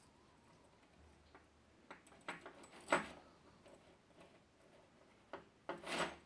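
Metal shower hose and its end nut clinking and rattling as they are handled, a string of sharp clicks with a louder knock about three seconds in and another cluster near the end.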